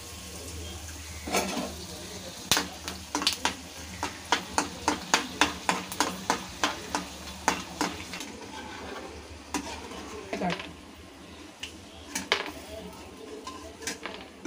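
Dried vathal (sun-dried turkey berries and bitter gourd) frying in hot oil in a kadai with a low sizzle. A steel spatula stirs them, scraping and clinking against the pan in a quick run of taps from about two to eight seconds in, then a few scattered knocks.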